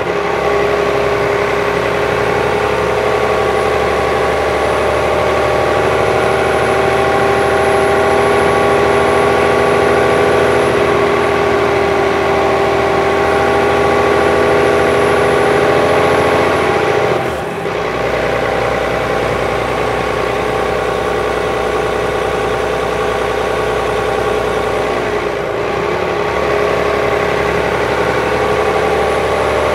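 Volvo B12B bus's DH12E 12-litre six-cylinder diesel engine idling steadily while the bus stands, with a brief dip in level about two-thirds of the way in.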